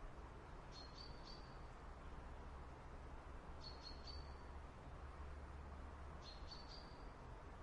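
Faint bird calls: three short clusters of high chirps, each ending in a brief held note, repeating about every three seconds over a steady low background hum.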